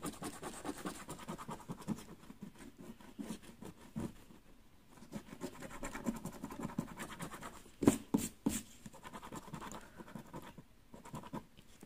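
A coin scratching the silver coating off a paper lottery scratch card in rapid back-and-forth strokes. There is a short pause about four seconds in and a few louder strokes around eight seconds in.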